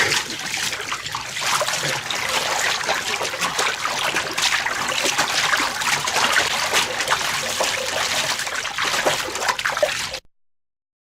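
Hot spring water bubbling, a dense run of small pops and splashes over a steady wash of water, which cuts off suddenly near the end.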